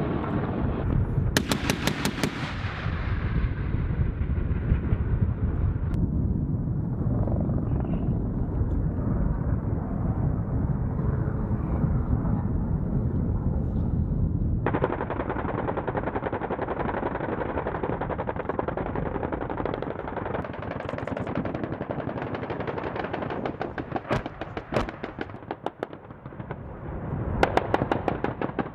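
AH-1Z Viper attack helicopters' rotors beating over the low rumble of their engines, with bursts of rapid fire from the M197 20 mm three-barrel gatling cannon. One burst comes about a second and a half in, and the loudest comes near the end.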